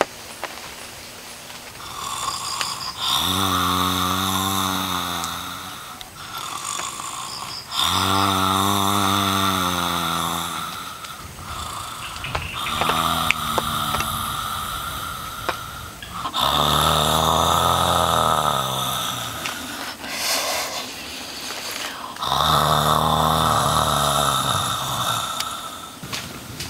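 A man snoring in his sleep: five long, deep snores, one every four to five seconds.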